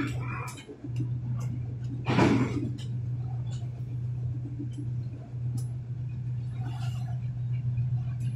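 Train running through a long railway tunnel, heard from the rear of the train: a steady low drone with scattered clicks and rattles, and a louder rushing clatter about two seconds in.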